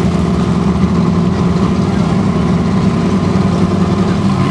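Formula offroad buggy's engine running loud at steady revs, a constant-pitched drone that neither rises nor falls.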